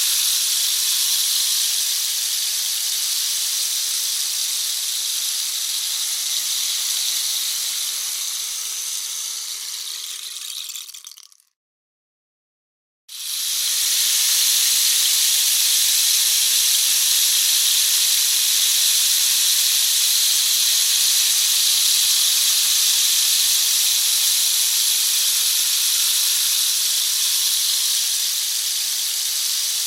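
Rain stick: a steady rushing patter of pellets cascading through the tube. It thins and fades out about eleven seconds in as the run ends, then after a second and a half of silence starts again suddenly at full strength when the stick is turned over, and runs on steadily.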